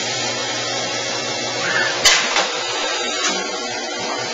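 Steady running noise of an automatic screw-driving cell's machinery, with a sharp click about two seconds in.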